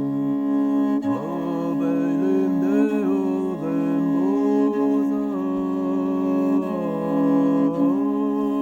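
Traditional Tuvan music: a steady bowed-string drone, with a low voice humming or singing a sliding melody over it from about a second in.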